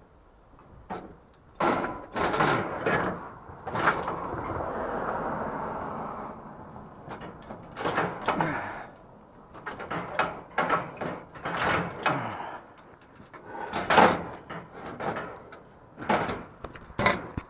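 A series of knocks and clatters from things being handled and bumped, with a longer scraping slide about four seconds in.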